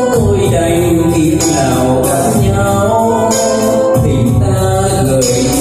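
A man singing into a microphone over amplified backing music, drawing out long, wavering notes.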